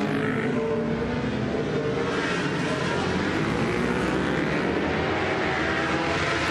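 Racing motorcycle engines at high revs as a group of bikes approaches on a circuit, several engine notes overlapping, their pitch rising and falling.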